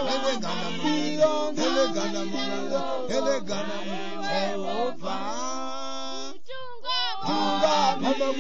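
Song with several voices singing together on held, bending notes. Near the end the voices briefly thin out to a few sliding lines, then the fuller singing comes back.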